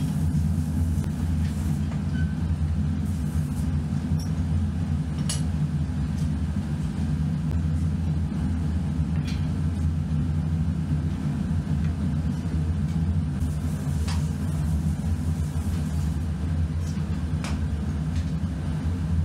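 Steady low drone of running machinery, even in level throughout, with a few short, sharp clicks and knocks from metal moulding flasks and tools being handled.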